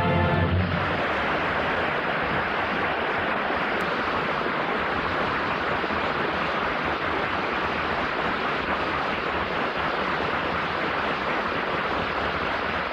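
The orchestra's closing chord ends about half a second in, followed by steady audience applause.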